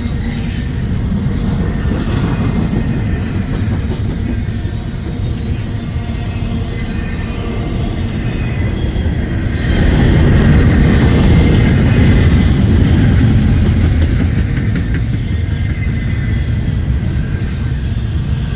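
Union Pacific train rolling past, a steady rumble of wheels on the rails that grows louder about halfway through and then eases off.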